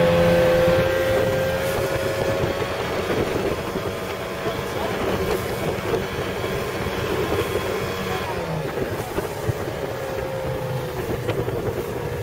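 Speedboat engine running at a steady cruising speed, with water rushing along the hull.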